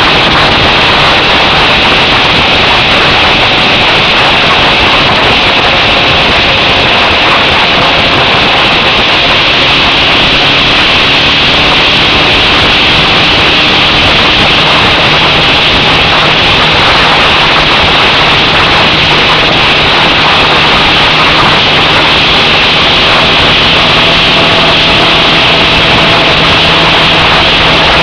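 Suzuki DR650's single-cylinder engine at a steady highway cruise, partly buried under loud, constant wind rush over the camera microphone.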